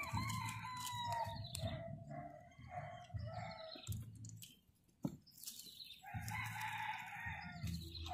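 A chicken calling in the background: a string of short, repeated notes over the first few seconds, then a longer, rougher call about six seconds in.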